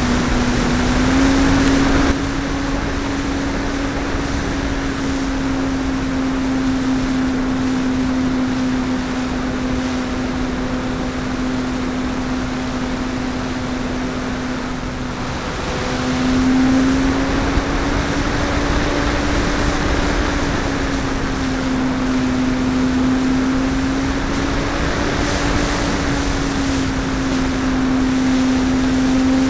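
Parkzone P-51D Mustang's brushless electric motor and propeller running in flight, a steady hum whose pitch rises and falls slightly a few times. Heard from on board the plane, with air rushing over the microphone.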